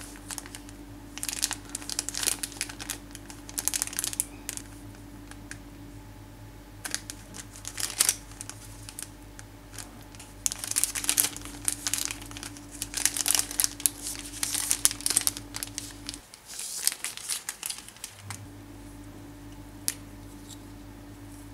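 Thin clear plastic packaging of a paintbrush set crinkling in bursts as it is handled, over a steady low hum. The crinkling stops about three-quarters of the way through, leaving the hum and a single click near the end.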